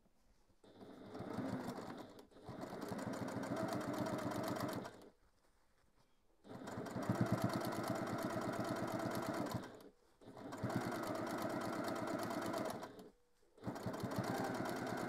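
Electric domestic sewing machine stitching patchwork fabric, in four runs of a few seconds each separated by short pauses, with fast, even needle strokes within each run.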